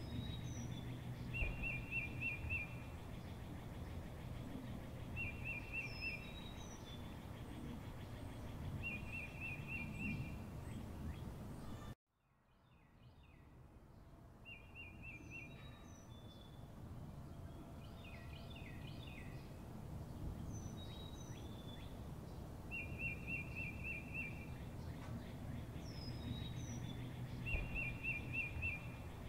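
Outdoor nature ambience of birds calling: a short, rapid trill repeated every few seconds and brief high chirps, over a low steady background noise. About twelve seconds in, the sound cuts out abruptly and then fades back up.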